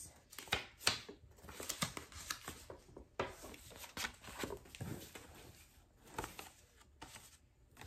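Paper rustling and crinkling as a folded paper card is pulled out of a handbag and unfolded, in a run of short, irregular crackles.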